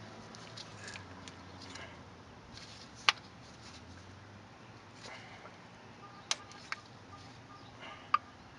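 Four short, sharp metallic clicks with low background noise between them: brake caliper slide pins and tools clinking as the pins are pulled out of the caliper bracket.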